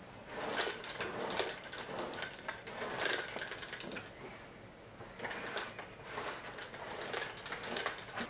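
Sticky lint roller rolled back and forth over fabric cushions, its adhesive sheet crackling with each stroke. The strokes come in two spells, with a short pause about four seconds in.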